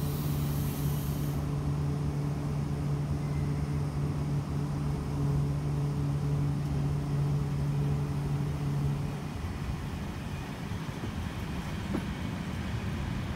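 ED4M electric commuter train at a platform, giving off a steady electrical hum with a short hiss of air at the start. The hum stops about nine seconds in, leaving the low running noise of the train as it moves off.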